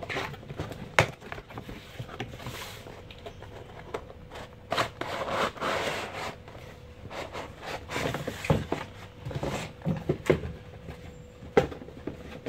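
Cardboard box and molded paper-pulp packing tray handled by hand, with rustling and scraping of cardboard and plastic wrap and scattered sharp knocks. The loudest knocks come about a second in and again near the end.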